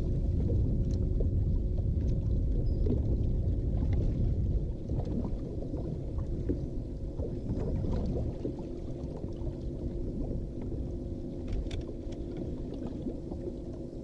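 Low wind-and-water rumble on an open boat deck, with a steady electric hum from a bow-mounted trolling motor. The rumble is strongest for the first four or five seconds, then eases.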